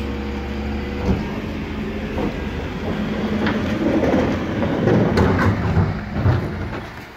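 Refuse collection lorry running with a steady low hum, and a rattling, clattering noise that builds about three seconds in and dies away near the end.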